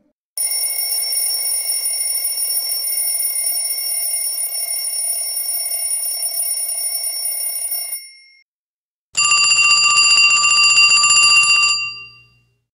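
A bell rung rapidly and continuously, like an old telephone's electric bell, for about eight seconds. After a brief pause, a second, lower-pitched bell rings the same way for about two and a half seconds. Each ends with a short ring-out.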